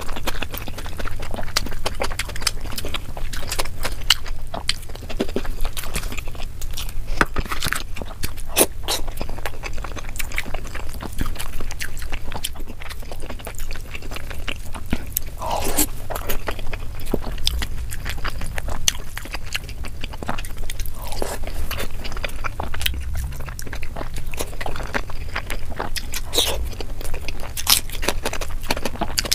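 Close-miked hand-eating sounds: fingers squishing and scraping rice and egg curry on a plate, and mouthfuls being chewed, a dense, steady run of small wet clicks.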